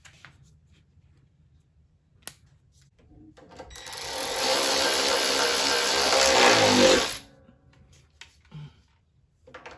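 Ryobi 18V cordless ratchet motor spinning for about three and a half seconds, running a bolt back into a small engine. Its pitch drops in the last second as the bolt runs down and tightens, then it stops. A single faint click comes about two seconds before it starts.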